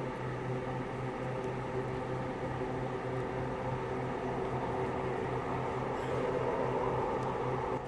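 A steady low mechanical hum with a faint even background hiss, unchanging throughout.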